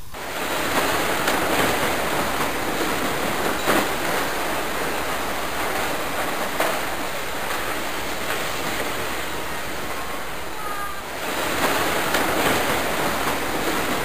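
A steady rushing noise, with a few faint clicks as the plastic steering-column switch parts are handled.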